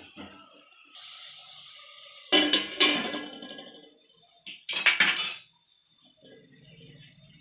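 A steel spoon clinking and scraping in a metal pot of frying onions, then a steel plate set on the pot as a lid. There are loud metal-on-metal clatters about two and a half seconds in and again about five seconds in.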